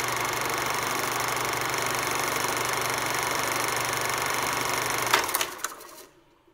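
Film projector running: a steady mechanical whirr and clatter over a constant hum, which stops with a sharp click about five seconds in and then dies away.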